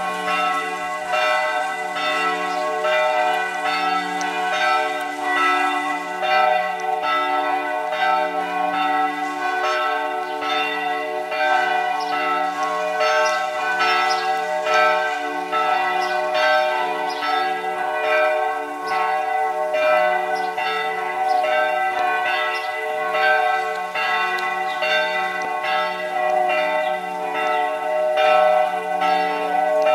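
Church bells of two churches ringing together for the noon peal: a continuous peal of overlapping strikes, with the bells' tones hanging on between them.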